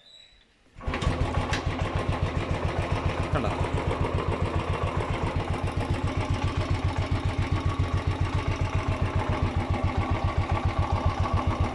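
Royal Enfield Classic 350's carburetted single-cylinder engine kick-started, catching about a second in and then idling with a steady, even beat. It is running with the battery disconnected, powered only by its alternator.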